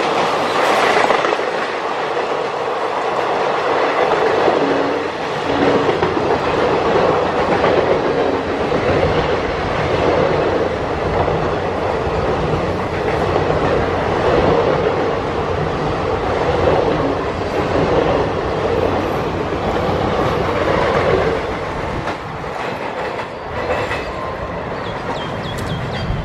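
An express train's passenger coaches pass at speed close by, their wheels clattering over the rail joints in a continuous clickety-clack. The noise eases a little near the end.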